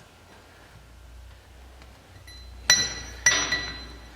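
Two sharp metallic clinks about half a second apart, each ringing on briefly: metal engine parts knocked together while being handled.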